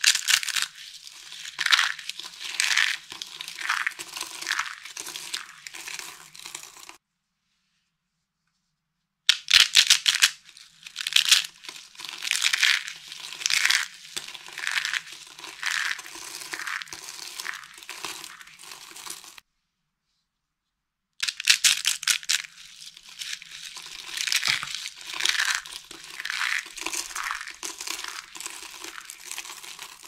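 Dry soap crunching and crackling as hands crush rolled soap curls and squeeze handfuls of dry soap flakes. It comes in three stretches, broken twice by a couple of seconds of total silence.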